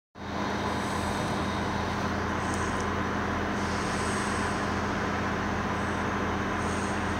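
Class 159 diesel multiple unit's underfloor Cummins diesel engines running steadily as the train moves slowly along the platform: a steady drone with a faint steady whine over it.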